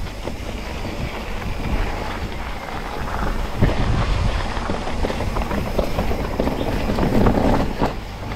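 Mountain bike riding noise: a steady rush of wind on the microphone with rattles and knocks from the bike, a little louder about seven seconds in.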